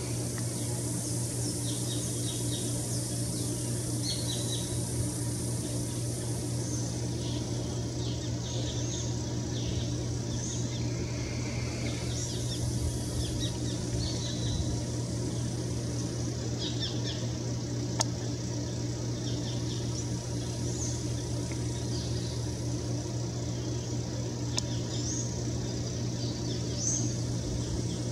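Scattered short bird chirps over a steady low hum, with a faint high hiss in stretches and a single sharp click past the middle.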